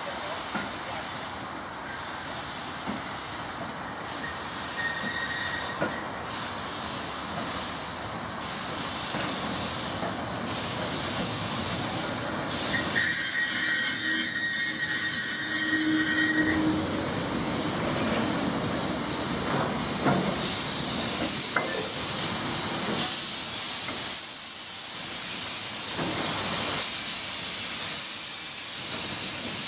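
Small steam locomotive moving slowly past with its wagon, steam hissing steadily and growing louder as the engine draws level. About halfway through, a steady high tone sounds for around three seconds.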